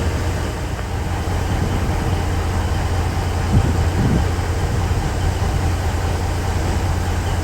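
Vehicle engine and road noise heard from inside the cab while driving, a steady low drone with a couple of short bumps about three and a half and four seconds in.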